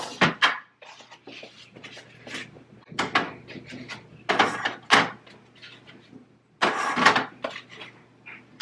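Food containers and packages knocking and scraping as they are put onto refrigerator shelves: a scattering of short knocks and clatters, with a longer scraping rustle about two-thirds of the way through, over a faint steady low hum.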